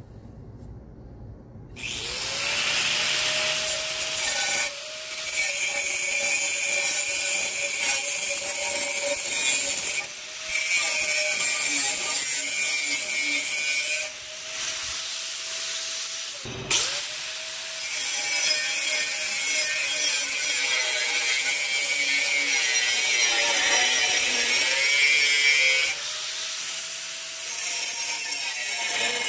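Angle grinder with a cut-off wheel spinning up about two seconds in, then cutting through an 80CrV2 steel blade blank: a steady motor whine over the hiss and grind of the disc in the steel. The run breaks off briefly a few times and picks up again.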